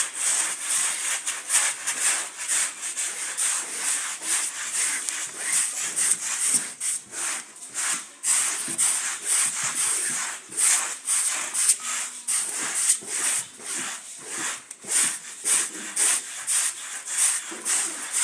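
A carpet being scrubbed by hand, with rough rubbing strokes repeating about twice a second.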